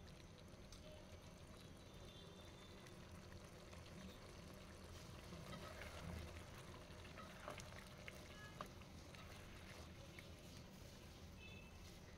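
Faint stirring of a thick beef and potato curry with a spatula, a soft wet squelching with a few light clicks of the spatula against the pot.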